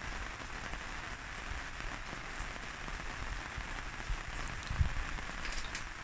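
Steady rain falling, an even hiss, with a low rumble underneath and one low thump a little before the end.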